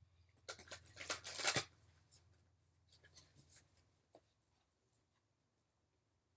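An animal-spirit oracle card deck being shuffled. About half a second in comes a quick burst of rapid card rustling, and then a few light flicks of single cards.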